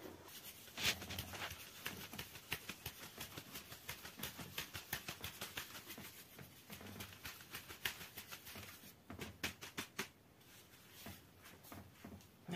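Flour being sifted through a wooden-rimmed drum sieve: quick, irregular patter and light taps as the sieve is shaken over the flour pile. It dies down about ten seconds in.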